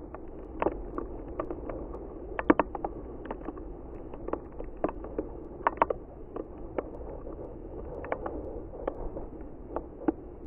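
Irregular light clicks and taps, several a second, over a low steady rumble, with a brief cluster of sharper clicks about two and a half seconds in.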